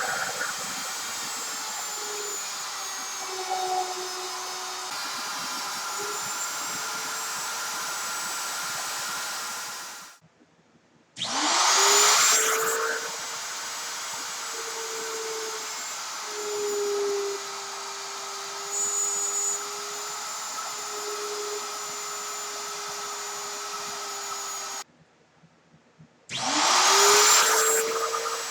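An electric motor spinning up with a rising whine, then running steadily, with a high steady whine over it. It cuts off abruptly and starts up again three times.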